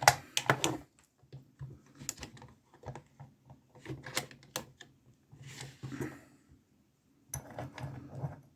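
Small metallic clicks and clinks of lockpicking tools and a 20 mm Amtech brass padlock being handled, in irregular short bursts with pauses between.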